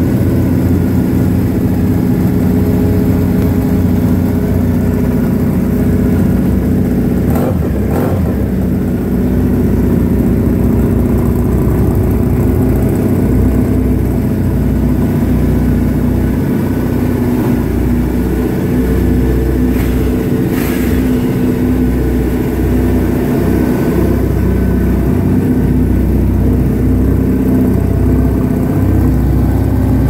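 Three Triumph air-cooled parallel-twin motorcycles idle together with a steady, loud exhaust note: a Bonneville and a Thruxton 900 on sports pipes, and a Scrambler with an Arrow 3-into-1 exhaust that is drowned out by the other two.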